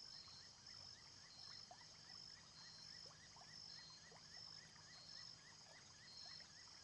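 Near silence: a faint nature ambience of rhythmic insect chirping, several chirps a second, with a few short falling bird-like calls over a low hum.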